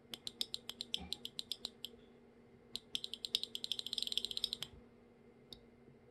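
Small signal relays of a relay volume attenuator clicking in quick runs as the volume is stepped up and down with a rotary encoder: about eight clicks a second for the first two seconds, then a faster run from about three to nearly five seconds in, and one last single click.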